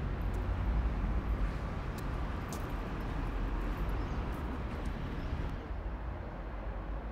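Steady outdoor town ambience: a low rumble of distant traffic, with a few faint light clicks in the middle.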